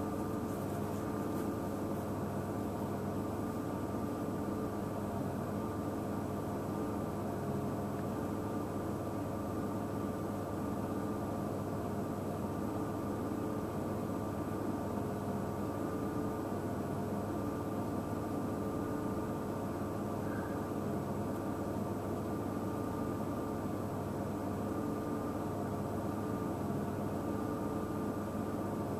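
A steady mechanical hum holding several fixed tones, unchanging throughout.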